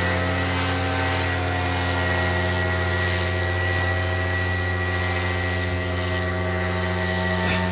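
Paramotor engine and propeller running at a steady throttle, holding one even pitch throughout.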